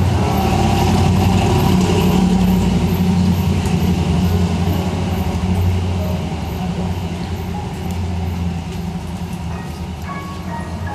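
A heavy engine running with a steady low rumble that dominates and gradually eases off over the second half, over softer solo piano playing.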